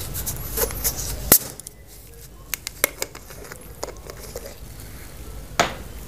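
Sharp clicks and knocks from handling a Pepsi bottle, with a loud snap about a second in, then a few smaller clicks and a louder knock near the end.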